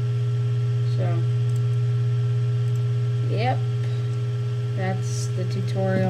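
Steady low electrical hum, mains hum picked up by the recording, with a few faint brief voice sounds over it.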